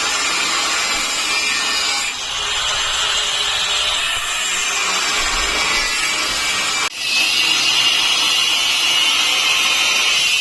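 Angle grinder running against steel, a steady whine over a gritty rush. The sound changes abruptly about two seconds in and again about seven seconds in, the whine higher and brighter after the second change.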